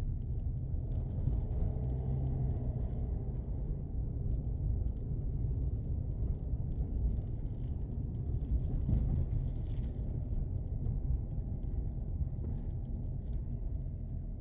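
Steady low rumble of a car driving, with tyre and engine noise heard from inside the cabin.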